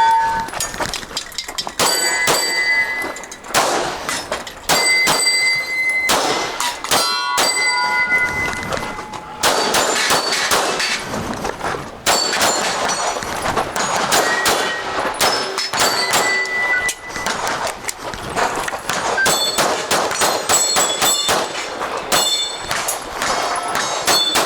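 Pistol shots fired in quick strings at steel targets, with the steel plates clanging and ringing on each hit, and a few short pauses between strings.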